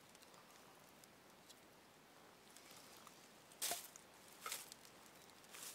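Near quiet, then a few short, sharp scraping noises in the second half, about a second apart, as wood is handled and worked at a tree stump.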